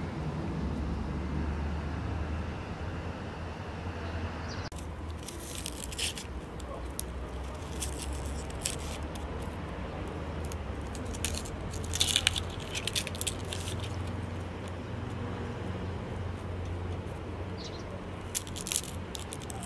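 Knife peeling the dry skin off an onion: short, scattered, papery crackles and scrapes, with a cluster about twelve seconds in, over a low steady rumble.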